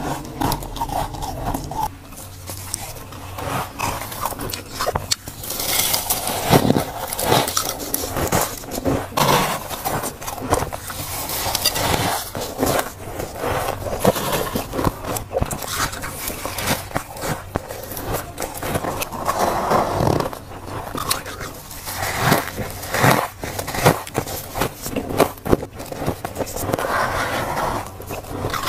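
Thick freezer frost being scraped loose and crunched, in many short, crisp scrapes and crunches.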